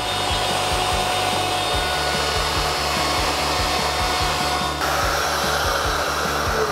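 Router running steadily as it cuts a sliding dovetail groove across a pine panel, guided along a rail, with a steady motor whine. Its tone shifts about three-quarters of the way through, and near the end the motor pitch begins to fall as it winds down. Background music with a steady beat plays underneath.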